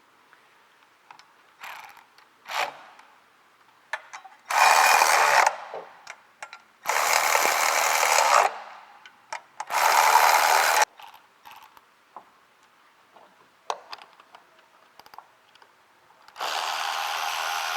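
Cordless power tool running bolts down: four short runs of one to two seconds each, the last starting near the end, with light clicks of tools and parts in between.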